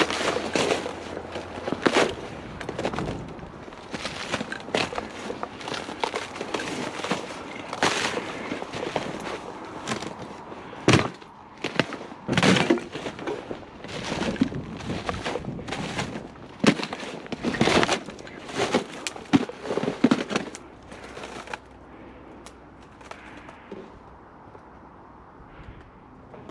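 Irregular rustling and crackling with frequent sharp knocks, dying down after about twenty seconds.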